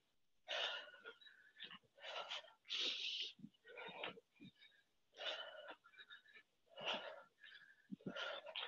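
A woman breathing hard from exertion during side-skater jumps, sharp, noisy exhalations about once a second, with a few soft thuds of her feet landing.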